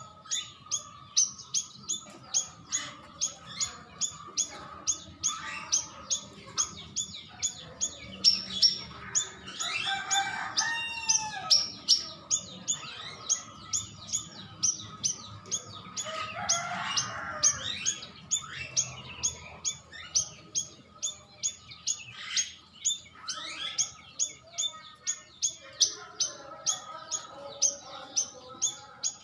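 Cucak rawis songbird calling: a fast, even series of short high chirps, about two to three a second, broken twice by louder warbling phrases that glide up and down in pitch. This is a lure call played to make other cucak rawis answer.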